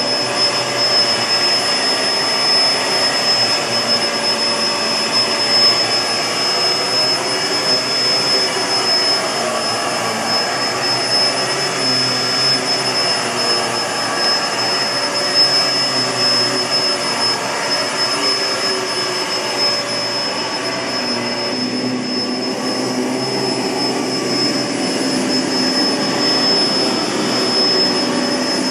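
Kenmore CrossOver Max bagless upright vacuum cleaner running steadily, its blower motor giving a constant airflow rush with a thin high whine over it.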